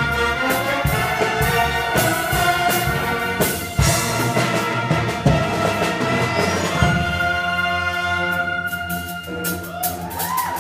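School concert band playing a brassy arrangement, with a standing saxophone soloist out front and drum hits throughout. The band thins out near the end.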